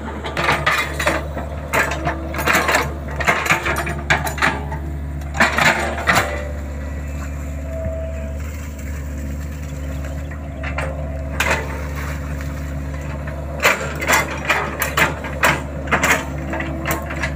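Small hydraulic excavator's diesel engine running steadily under load while it digs. Bursts of rapid clattering knocks through the first half and again near the end.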